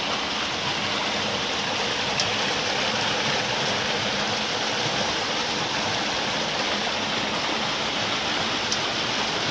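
Water rushing steadily down a narrow channel and splashing through the paddles of a turning wooden water wheel, with two faint ticks about two seconds in and near the end.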